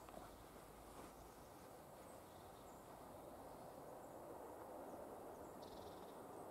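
Near silence: faint outdoor ambience, a soft even hiss that grows slightly louder toward the end.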